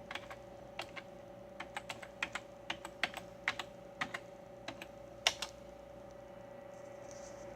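Typing on a computer keyboard: a run of irregular, uneven keystrokes for about five seconds, then it stops.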